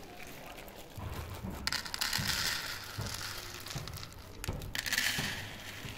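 A plastic bag of dry cat food crinkling as kibble is poured out of it onto a plastic plate, in two bursts.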